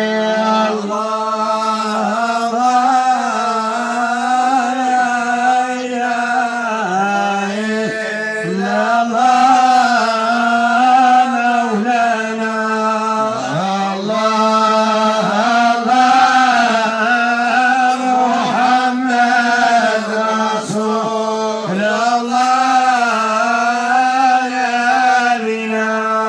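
A male voice sings long melismatic phrases of a Moroccan Sufi madih (praise song for the Prophet) into a microphone, the pitch bending up and down through each phrase. A steady held drone note sounds underneath throughout.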